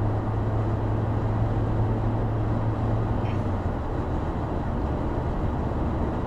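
Steady road noise inside a moving car's cabin at highway speed: tyre and engine drone with a low hum that eases a little about three seconds in.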